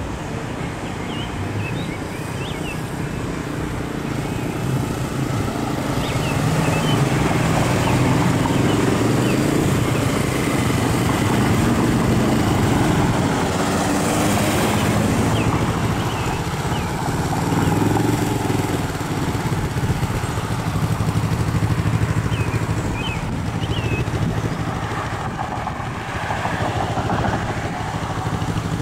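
Road traffic passing through an intersection: car engines and tyre noise, swelling louder in the middle and easing off again.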